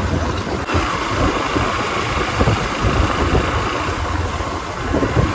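Motorcycle riding along, its engine and road noise heard steadily from the rider's seat.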